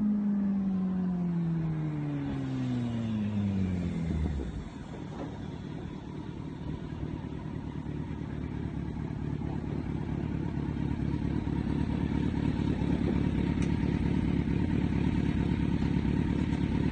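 Kawasaki Z900 motorcycle's inline-four engine, its pitch falling steadily over about four seconds as it slows and draws away. After that, a steady rumble that slowly grows louder.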